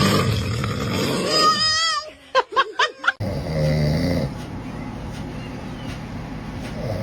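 A man snoring loudly: a long snore ending in a wavering whistle, a quick run of short puffs, then a lower-pitched snore about three and a half seconds in, with a quieter steady sound after it.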